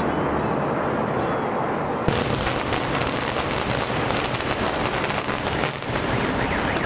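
Controlled explosive demolition of a high-rise tower: loud continuous noise, then about two seconds in a sharp crack and a long crackling crash of concrete and debris as the building collapses.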